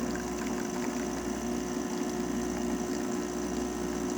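A Gaggia Accademia espresso machine's pump runs steadily, pushing water through the machine under pressure while it brews a shot.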